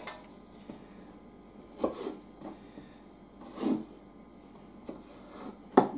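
Chef's knife slicing pickled baby cucumbers on a plastic cutting board: a few separate taps of the blade going through and meeting the board, about five in all and spread out, the sharpest one near the end.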